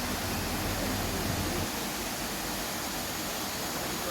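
Steady rush of water from a waterfall, an even hiss across all pitches. A low rumble under it drops away about a second and a half in.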